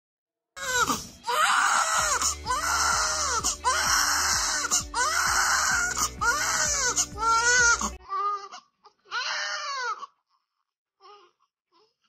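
Newborn baby crying loudly in repeated rising-and-falling wails, about one a second, over background music that cuts off suddenly about eight seconds in. After that come two more cries on their own, then a few faint whimpers.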